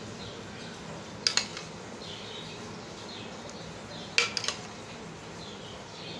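Steel spoon clinking while soaked basil seeds are spooned into cups: two sharp clinks about a second in, then a quick run of three a little after four seconds. Faint, short, high chirps repeat in the background over a low steady hum.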